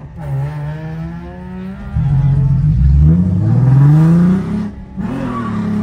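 Nissan 350Z drift car's V6 engine heard from inside the cabin, pulling hard with a steadily rising pitch from about two seconds in, then the revs drop sharply near the end before it carries on.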